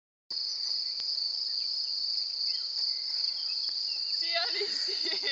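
Crickets chirping in a continuous high-pitched chorus.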